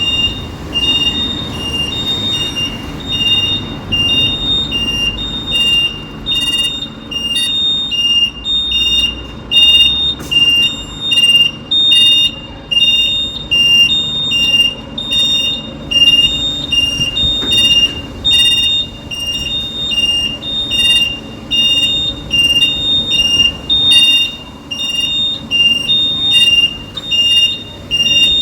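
Truck reverse alarm on a bitrem truck-trailer beeping repeatedly, a bit more than once a second, while it backs up to park, with the truck's engine rumbling underneath.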